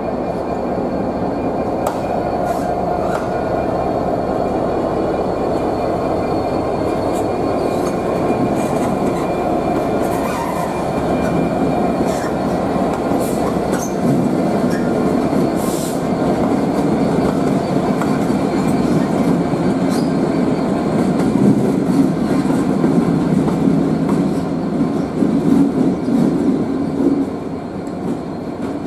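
Freightliner Class 66 diesel locomotives running slowly past the platform, their two-stroke V12 diesel engines giving a steady, loud running sound that grows louder in the second half, with scattered clicks of wheels over the track.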